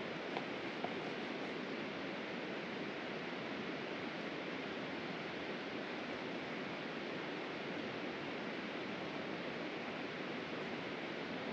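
Steady rushing of a mountain river flowing over rocks, with two faint clicks about half a second apart in the first second.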